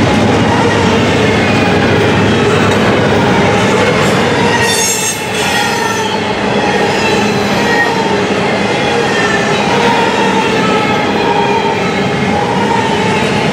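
Double-stack intermodal container cars rolling past at close range: steel wheels rumbling and clattering on the rails, with a wavering wheel squeal over the top. The sound dips briefly about five seconds in.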